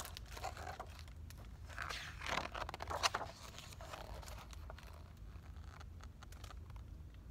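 Paper rustling and scraping as a page of a large picture book is turned and smoothed flat, loudest about two to three seconds in.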